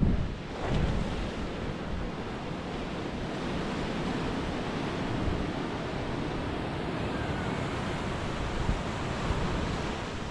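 Sea waves breaking and washing up a sandy shore in a steady surf wash, with wind rumbling on the microphone, strongest in the first second.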